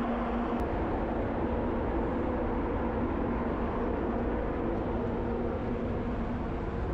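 Steady hum of a destroyer's on-board machinery and ventilation, with wind rumbling on the microphone.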